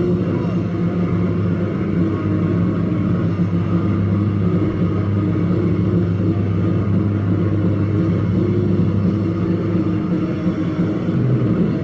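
Hardcore punk band playing live, in a muddy, low-fidelity recording: electric guitars and bass in a dense, steady wall of sound.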